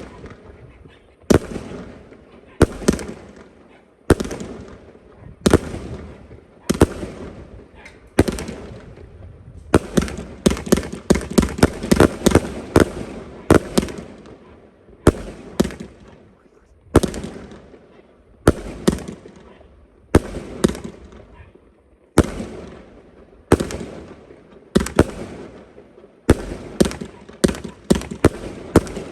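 72-shot Panda-T 'America' firework cake firing: sharp shots, at first about one every second or so, then quick rapid-fire flurries about ten seconds in and again near the end.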